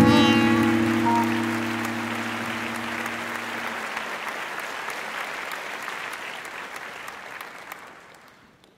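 Audience applauding, with a last held musical chord ringing under the clapping for the first few seconds; the applause fades out near the end.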